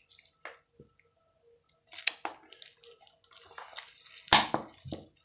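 Watery homemade slime being squeezed and poked by hand, making irregular wet squelches and small crackles, with one louder squelch near the end.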